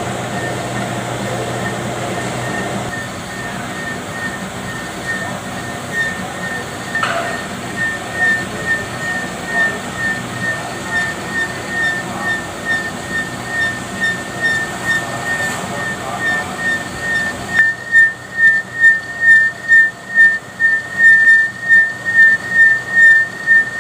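Metal lathe running with a high squeal that pulses about twice a second, once per turn of the work. Near the end the background running noise drops and the squeal pulses grow much louder.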